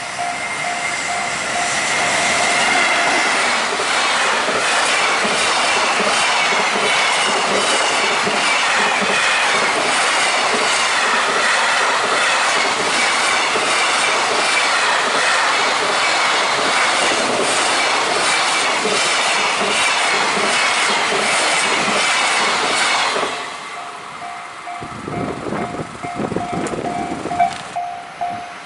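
Electric passenger or freight train passing close by for about twenty seconds, its wheels clacking rhythmically over the rail joints. The train noise falls away suddenly near the end, leaving a repeating ding, with gusts of wind on the microphone.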